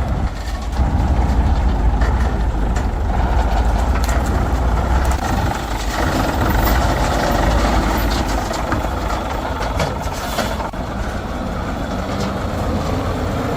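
Heavy truck engine running steadily with a deep rumble. Its lowest part eases about six seconds in.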